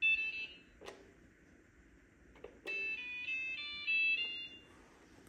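iRobot Braava jet robot mop playing its electronic tones as its button is pressed: a short chime at the start, a few button clicks, then a longer multi-note tune of stepping beeps. The robot is faulty and does not go on to run.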